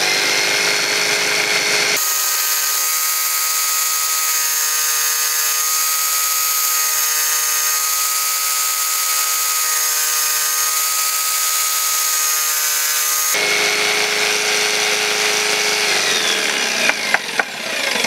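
Inexpensive jigsaw mounted upside down under a homemade saw table, running steadily as its blade cuts a small piece of wood. The motor winds down, falling in pitch, near the end.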